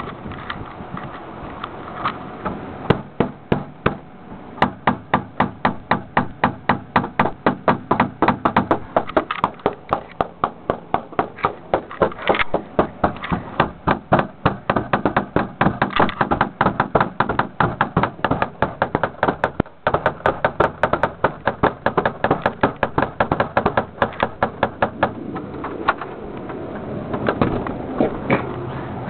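Repeated hard knocking on a shut door, about three knocks a second, starting a few seconds in and going on for some twenty seconds, with a few single knocks before.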